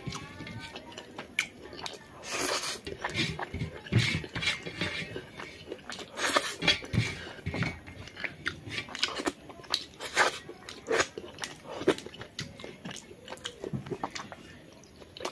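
A person eating rice and chicken curry by hand close to the microphone: irregular chewing, smacking and crunching, with fingers working the rice on a metal plate.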